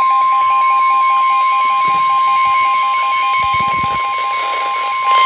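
NOAA Weather Radio warning alarm: a steady, loud single tone near 1 kHz (the 1050 Hz alert tone) that signals an urgent warning is about to be broadcast. A quicker on-off beeping runs alongside it.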